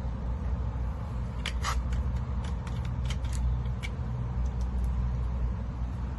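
Burning paper and charcoal lighting in a kettle grill, giving a run of sharp crackles and pops, thickest from about one and a half to four seconds in, over a steady low outdoor rumble.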